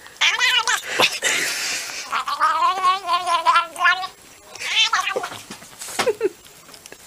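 Domestic cat yowling: a run of drawn-out, wavering meows, the longest about two seconds long near the middle.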